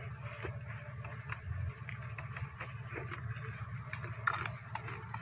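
Plastic bag rustling and crackling as it is handled over an open stingless-bee hive box, with scattered clicks and a steady low hum. One louder crackle comes about four seconds in.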